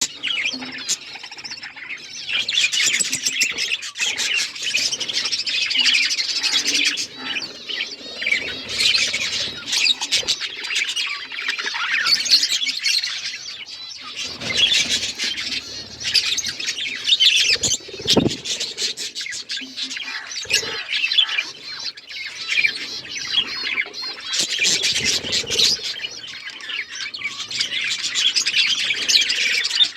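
Budgerigars chirping and chattering continuously, a dense warble of overlapping short chirps and squawks from several birds.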